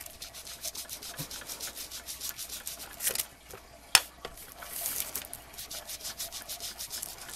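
Quick, regular rubbing strokes as Vintage Photo distress ink is worked onto paper over dried gesso, with a couple of sharper taps about three and four seconds in.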